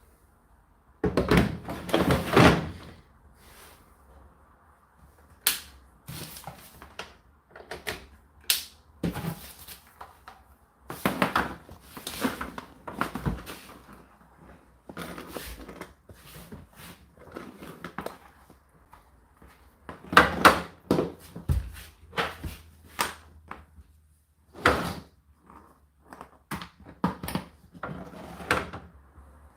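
Irregular thuds and knocks, some single and some in clusters a second or two long, over a faint steady low hum.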